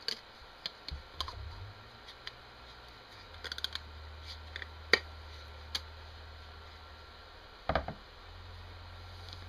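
Scattered light clicks and taps of small objects being handled on a workbench, with one sharper click about five seconds in and a short knock near the end, over a faint low hum.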